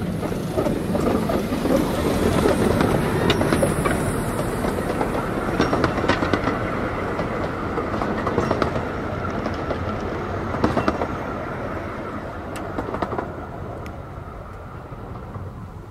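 A 15-inch-gauge 0-4-2T steam locomotive and its carriages running past, the wheels clicking and rattling over the rail joints. The sound is loudest in the first few seconds and fades steadily as the train moves away.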